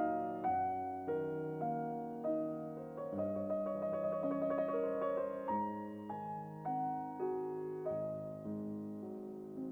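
Background piano music: a slow melody of single notes and chords, each struck and left to fade, with a quick flurry of repeated notes about halfway through.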